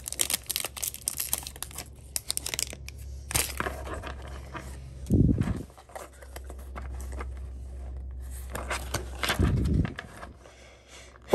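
Foil wrapper of a Pokémon booster pack being torn open and crinkled, a dense crackle for the first few seconds, with more crinkling as the cards come out. Two dull thumps about five and nine seconds in.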